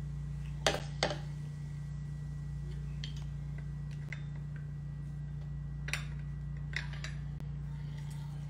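Kitchen utensils and a cup clicking and knocking on the counter during cocktail making: two sharp knocks about a second in, a few light ticks, then two more knocks about six seconds in, over a steady low hum.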